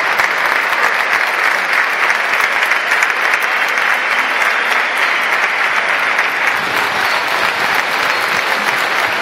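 Large stadium crowd applauding, a dense, steady clatter of many hands clapping.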